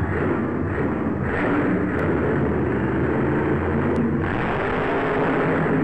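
Maximum Destruction monster truck's supercharged V8 engine running loud as the truck drives.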